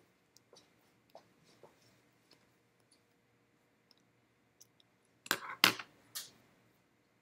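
Light clicks and taps of a stylus on a tablet screen as notes are drawn on the slide, then a short cluster of three louder sharp clicks a little after five seconds in.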